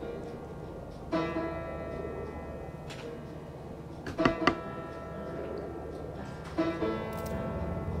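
Acoustic guitar strummed three times, about a second in, a little after four seconds and near seven seconds, each chord left to ring out. A low steady rumble lies underneath.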